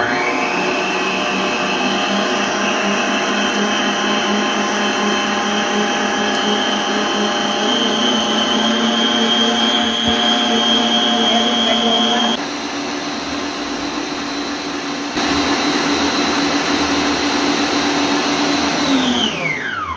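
Electric stand mixer running at high speed, its wire balloon whisk beating eggs and sugar to a pale, thick foam, with a steady motor whine. The loudness steps down about two-thirds through and comes back up a few seconds later; near the end the motor is switched off and its pitch falls as it winds down.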